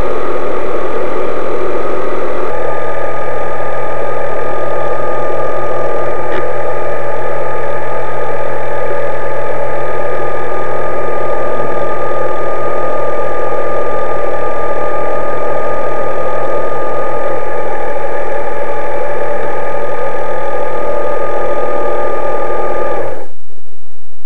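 Loud, steady electric-motor whine and hum of an RC model submarine running submerged, picked up by its onboard camera. The tone shifts slightly about two and a half seconds in and cuts off suddenly near the end.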